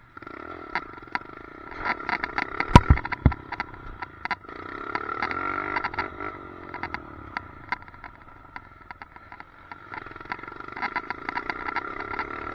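Track ride heard through a loose helmet chin-mounted camera: a steady high whine over a running drone, with constant rattling clicks from the loose chin mount, which makes a weird noise. The clatter is heaviest about two to three seconds in and again near the end.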